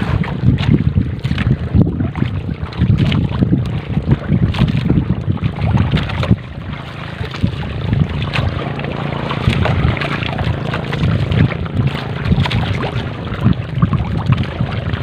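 Wind buffeting the microphone and water sloshing along a small boat's hull while a wet fishing net is hauled by hand over the gunwale, with many small scrapes and clicks from the net.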